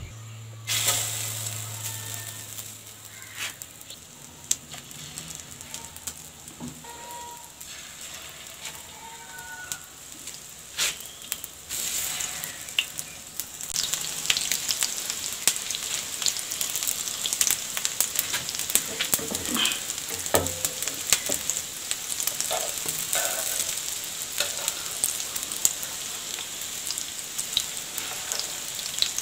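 Egg-coated chicken kababs shallow-frying in hot oil on a flat pan: a steady sizzle full of small crackles and pops. It gets louder about a second in and again around twelve seconds in.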